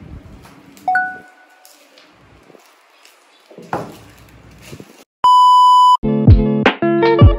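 Loud, steady test-tone beep lasting just under a second, the kind played with TV colour bars, cut in as an edited intro effect; bouncy plucked-note intro music starts right after it. Before that, faint room sound with a short fading chime about a second in.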